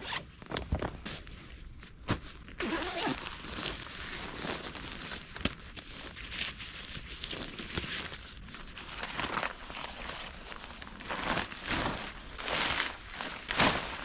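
Rustling, crinkling and scraping of gear being handled and of movement on the forest floor, with irregular short scuffs and steps; it grows louder about two and a half seconds in.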